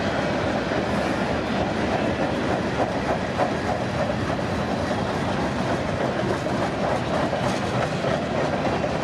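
CPKC westbound freight train's cars rolling past, their steel wheels running on the rails with a steady, continuous noise.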